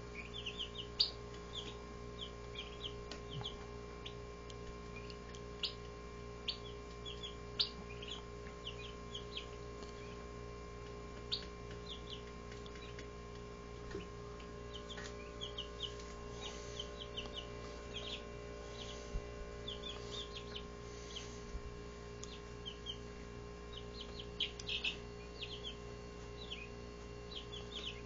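Barred Rock chicks, about two and a half weeks old, peeping: many short high chirps scattered irregularly throughout, over a steady low hum.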